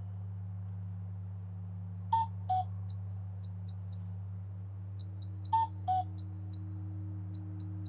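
Hand-turned wooden bird whistles: a short two-note falling call sounded twice, over a quick run of high chirping pips from another whistle. A steady low hum runs beneath.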